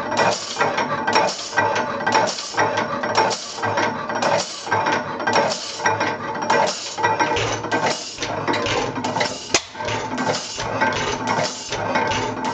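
1898 Deutz kerosene stationary engine running, its valve gear and linkage clattering in a steady rhythm of metallic clacks, about one heavier beat a second with lighter clicks between.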